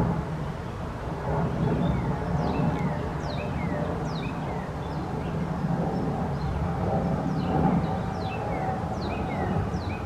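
Steady low rumble of distant traffic. Above it, small birds give faint, short, high chirps that fall in pitch, repeating about once or twice a second from about a second and a half in.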